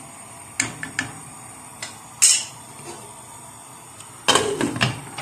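A few light knocks of a wooden spoon against a metal saucepan, then a glass pot lid set down onto the pan with a short clatter about four seconds in.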